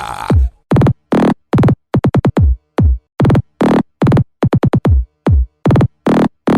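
Electronic funk (pancadão) track: loud, chopped synth-bass stabs, each dropping in pitch into deep bass, cut by dead silence between them in a stuttering rhythm of about two to three hits a second with quick triplets.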